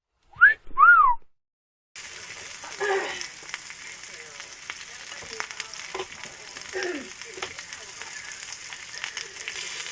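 Two short, loud whistle-like tones, each rising and then falling, in an otherwise silent edited gap. From about two seconds in, meat sizzles steadily as it grills on a solid-fuel brazier.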